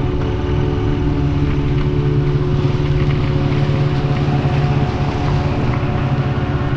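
A vehicle engine running at a steady speed, with road noise.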